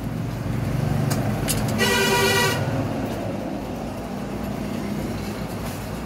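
A vehicle horn honks once, briefly, about two seconds in, over a steady low rumble of street traffic.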